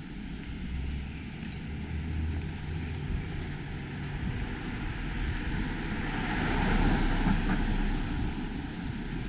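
Street traffic: a motor vehicle passes, its rushing tyre and engine noise swelling to loudest about seven seconds in and then fading, over a low hum.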